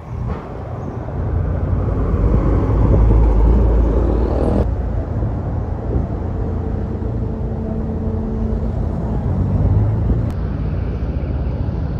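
Low engine rumble of a bus passing close by, swelling to its loudest about three to four seconds in, with a faint steady whine for a few seconds in the middle.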